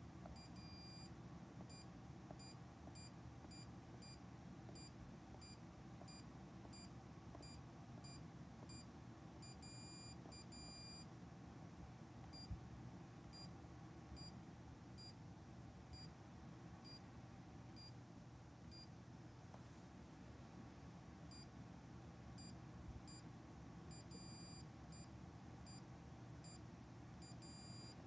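Panasonic CZ-10RTF4 wired air-conditioner controller beeping with each button press as the set temperature is stepped up from 18 to 30 °C. The short, faint, high beeps come in a quick run, about two a second, through the first ten seconds or so, and a second run comes near the end. A low, steady hum runs underneath.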